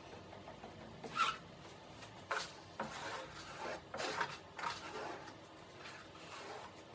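A small hand spreader scraped over epoxy-wet fiberglass cloth in about five short strokes, the loudest about a second in.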